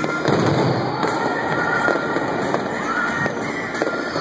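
Fireworks finale: shells launching and bursting in quick succession, a dense run of bangs and pops.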